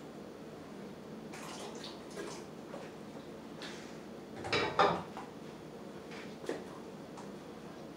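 A stainless steel saucepan set down on a gas stove's grate with a metallic clatter about halfway through, the loudest sound, amid lighter scrapes and clinks of a spoon against the pots.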